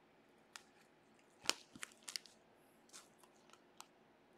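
Baseball trading cards being handled and shuffled through by gloved hands: several short, sharp clicks and snaps of card stock, the loudest about a second and a half in.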